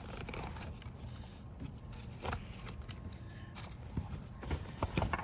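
Nylon webbing of a crotch strap being worked through a slot in a metal backplate and its soft pad, a quiet scuffing, with a few short knocks of the gear against the plate about two seconds in and near the end.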